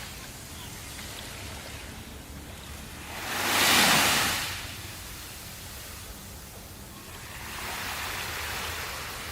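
Ocean waves on the shore: a steady wash of surf, with one loud wave breaking and rushing in about three to four seconds in, and a softer one swelling near the end.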